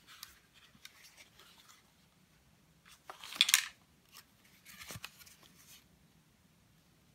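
Handling noise from a plastic FPV goggle turned over in the hands: light rubbing and clicks in the first couple of seconds, then a louder rasping scrape about three and a half seconds in and a shorter one around five seconds in.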